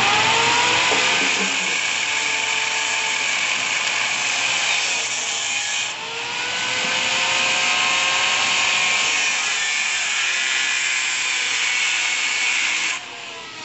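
Handheld power tool cutting into a mini bike's steel frame: a steady, loud grinding noise that dips briefly about six seconds in, runs on again and stops suddenly about a second before the end.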